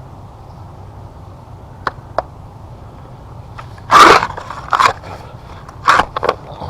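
Shovel scraping and scooping into gravel and mud while digging out a trench: several short crunching scrapes, the loudest about four seconds in.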